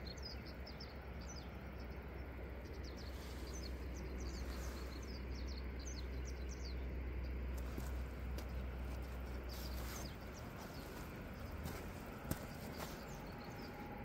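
Small birds chirping, many short high calls repeated throughout, over a steady outdoor wash and a low rumble that drops away about ten seconds in. A single sharp click near the end.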